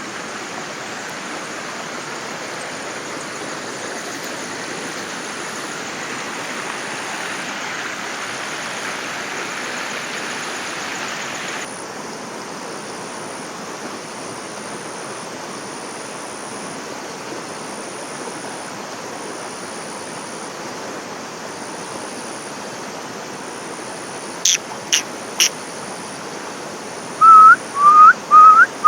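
Steady rush of flowing water, as from a waterfall or stream, that changes abruptly about twelve seconds in and becomes duller. Near the end come three sharp clicks, then four loud, short, rising whistled notes.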